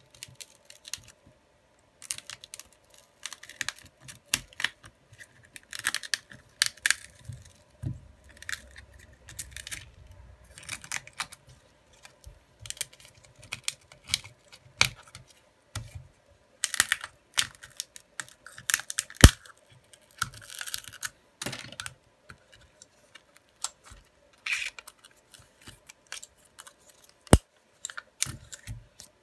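Irregular small clicks, taps and scratches from hands and a small tool working on a Xiaomi Redmi 9A/9C's parts: prying at the phone's edge, tugging a flex cable or tape, and handling the metal mid-frame. A couple of sharper snaps stand out, over a faint steady hum.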